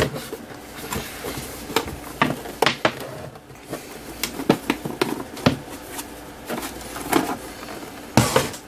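Scattered clicks and knocks of a Keithley 169 multimeter's case being handled and turned over, with a louder knock near the end as it is set down on the wooden bench.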